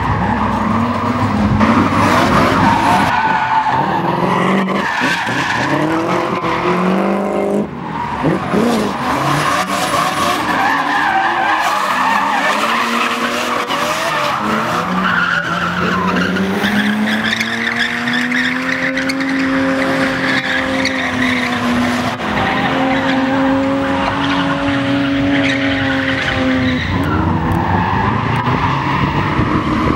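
Drift cars sliding sideways under power, their engines revving hard and rising and falling in pitch with the throttle, over a steady screech of spinning tyres. A long high-revving pull holds from the middle of the stretch and drops off near the end.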